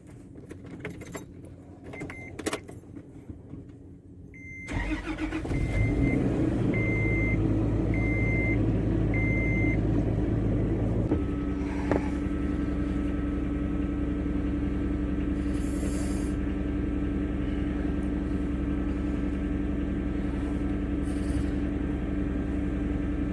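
A vehicle's engine starts about five seconds in and runs on at a steady idle, settling to a lower, even note about halfway through. A warning chime beeps about once a second for several seconds after the start, and a few clicks and knocks come before it.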